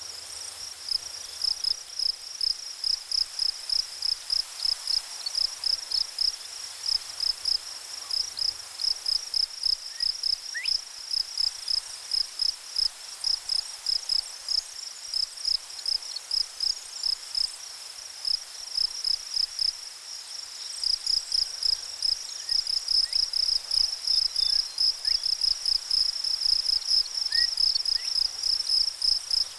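Cricket chirping in a steady rhythm of high-pitched pulses, about three or four a second, over a faint background hiss, with a brief lull about two-thirds of the way through.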